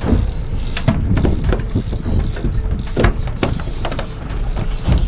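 Heavy wind-and-water rumble on a small open fishing boat at sea, with irregular knocks and clunks against the hull and gear every second or so.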